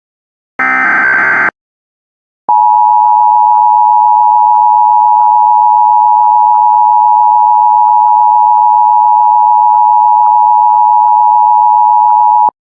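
Emergency Alert System broadcast signal: a one-second screech of SAME header data tones, then, about a second later, the EAS attention signal, a steady two-tone electronic tone held for about ten seconds and cut off abruptly. It announces a tornado warning.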